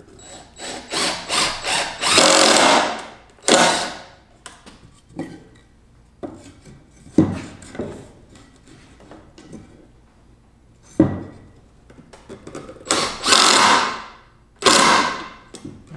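Cordless drill driving wood screws into 2x4 pine: short bursts then a longer run from about a second in, and two more runs near the end. A few single knocks of wood in between.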